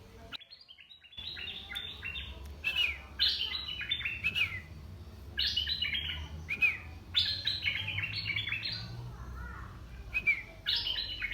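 Merbah lekir, a bulbul kept as a decoy bird, singing in repeated phrases of quick, stepped chirping notes, each phrase lasting one to two seconds with short pauses between. The sound drops out briefly just before the first phrase.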